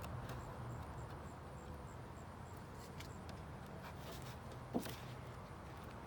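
Steady low background rumble with a few faint clicks, and one short sharp sound just before five seconds in.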